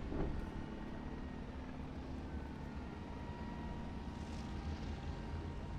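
Main battle tanks driving in a charge across the range, their engines and tracks a steady low rumble.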